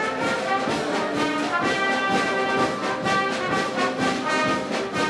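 A brass band playing, holding full chords of sustained notes that change every second or so.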